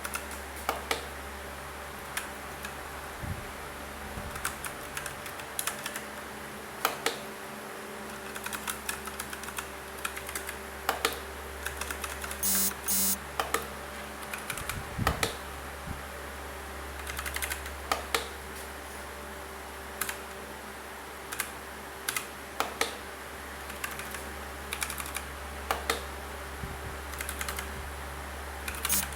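Typing on an Aula F2088 mechanical keyboard with brown switches: irregular key clicks, with a short rapid flurry of keystrokes about twelve seconds in.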